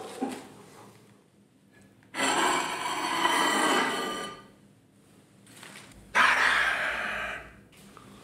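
A plate scraping and ringing against a slate board as a ribeye steak is slid off it. There are two loud bursts: a ringing scrape of about two seconds starting a couple of seconds in, then a shorter, noisier scrape with a low knock about six seconds in.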